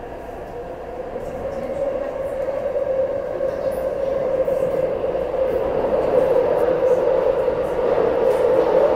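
Taipei Metro C371 train heard from inside the passenger car as it pulls away from a station and gathers speed into the tunnel. The running noise grows steadily louder, carrying a steady mid-pitched hum.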